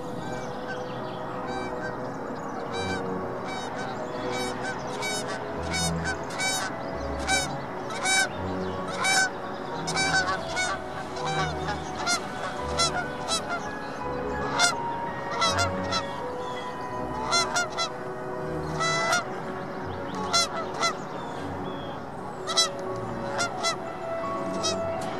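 Waterfowl honking: many short, loud, nasal calls coming in quick, overlapping series, over steady background music.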